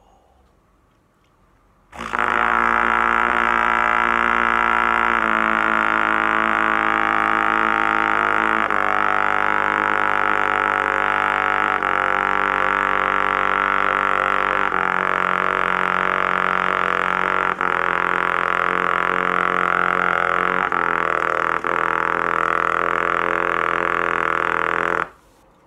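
Trumpet sustaining a series of long, low notes in one unbroken breath, about seven of them, each held for roughly three seconds; it is a breath-control exercise of seven whole notes. It starts about two seconds in and stops just before the end.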